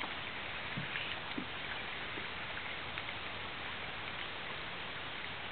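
Steady outdoor hiss of wind and water on a lake, with a few faint small clicks in the first second and a half.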